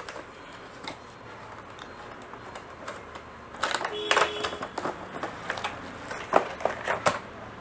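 Irregular small clicks and knocks of plastic parts being handled on a workbench, starting about three and a half seconds in, with a brief high tone at about four seconds.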